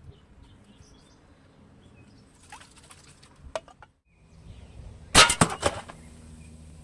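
A Snow Wolf M24 spring airsoft sniper rifle fires a 0.90 g steel BB into a full beer can: a sharp crack of the shot and hit about five seconds in, followed by a quick run of knocks as the punctured can falls over and clatters on the tile floor. A few faint clicks come before it.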